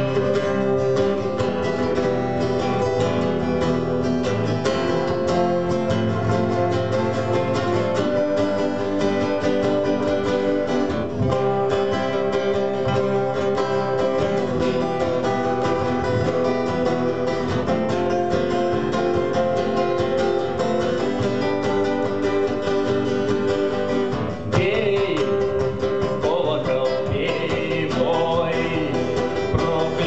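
Three acoustic guitars playing a song together, strummed and picked. About two-thirds of the way through, a male voice comes in singing.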